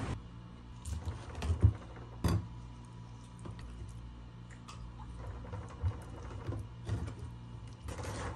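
Kitchen knife cutting raw chicken on a plastic cutting board: scattered light knocks and taps, the sharpest a little over two seconds in, over a faint steady low hum.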